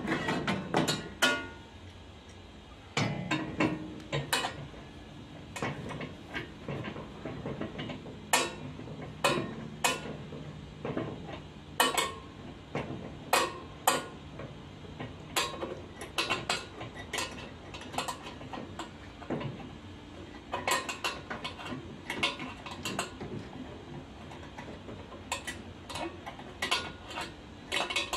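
Irregular metallic clinks, clicks and knocks of clamps and tools being handled and tightened on a steel wood-bending jig, in quick clusters and single strokes.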